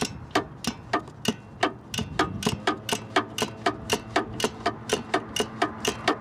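Flexible-head 3/8-inch drive ratchet clicking steadily, about three or four clicks a second, as it backs a 12 mm nut off the starter solenoid's terminal stud.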